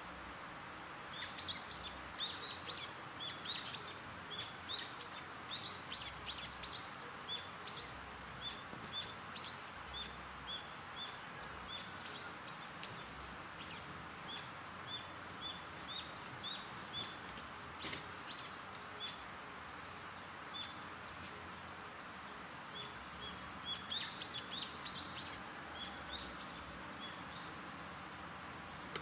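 Small birds chirping: quick series of short, high chirps that come in bursts and trail off, over a steady outdoor background hiss.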